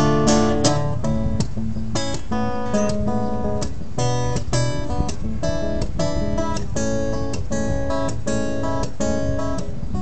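Acoustic guitar strumming chords in a steady rhythm, an instrumental break in a song with no singing.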